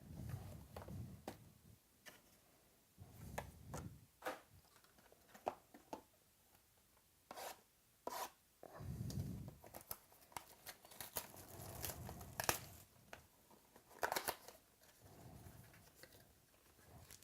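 Packs of 2016 Topps Finest Baseball trading cards being opened by hand: wrappers tearing and crinkling, with scattered sharp rips and soft handling thuds.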